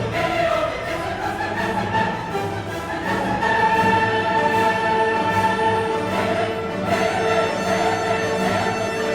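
Background orchestral music with a choir singing long held notes.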